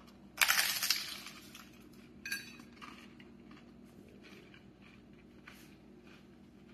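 A loud crunch as a fried fish taco in a hard taco shell is bitten into, about half a second in, then a second, shorter crunch a little after two seconds and fainter crunching of chewing.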